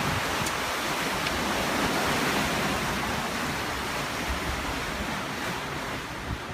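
Rushing white water of a river rapids ride churning around the raft, a steady wash of water noise that eases slightly near the end.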